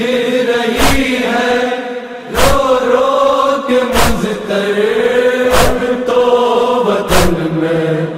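Noha recitation: voices chanting a drawn-out lament in long, wavering held notes. A sharp beat keeps time about every one and a half seconds.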